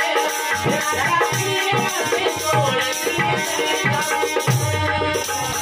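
Marwari folk song played live: a harmonium's steady reed chords under male singing, with hand strokes on a dholak barrel drum and a tambourine jingling. A deeper drum note rings out near the end.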